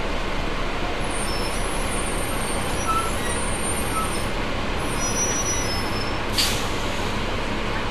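Double-decker bus standing with its engine running steadily. A short, sharp hiss of compressed air comes about six and a half seconds in.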